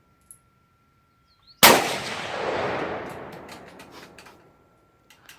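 A single gunshot about one and a half seconds in, its echo dying away over about two seconds, followed by a few faint ticks.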